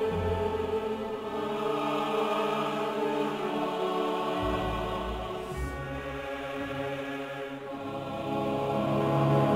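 Slow soundtrack music of long held chords with choir-like voices; the chord and bass shift about four and a half seconds in, and the music swells near the end.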